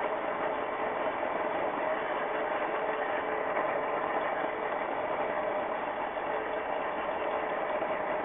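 HO-scale model train running along the track, heard up close from a car riding on it: a steady whir of the small motor and wheels on the rails, with a steady whine running through it.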